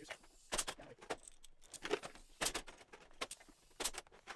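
Sharp metallic clicks and clinks at an irregular pace, about nine in all, from Cleco fasteners being squeezed with Cleco pliers and snapped into drilled aluminium parts.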